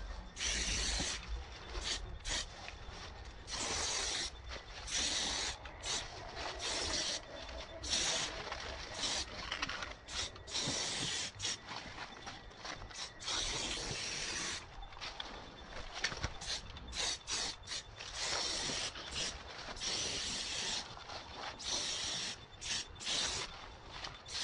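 Aerosol spray paint can spraying in repeated bursts, from short taps to runs of a few seconds, with brief pauses between.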